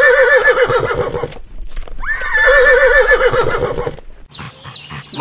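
Horse whinnying twice: two long neighs, each starting with a sharp rise in pitch and then quavering rapidly. The first is already sounding and ends about a second in; the second follows about two seconds in and lasts about two seconds.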